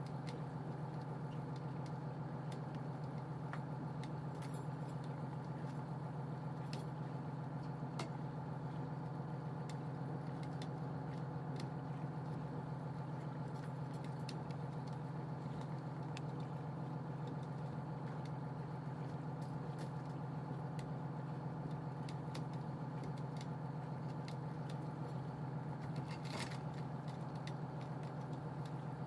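A fishing boat's engine running steadily at an even pitch, with a few light clinks and rattles over it.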